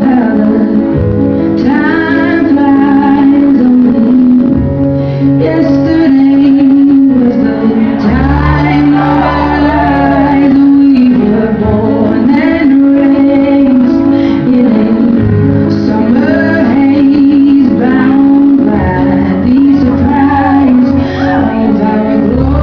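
A song playing loudly, with a woman singing a gliding melody over a steady, sustained accompaniment.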